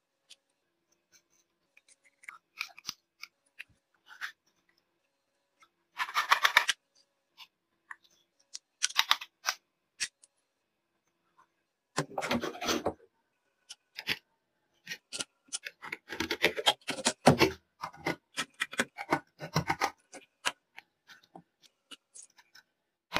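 Rusty old hand-cranked hammer drill being handled and taken apart on a workbench: scattered metal clicks and several short bursts of scraping and rattling as it is set in a bench vise and its corroded screws are worked loose.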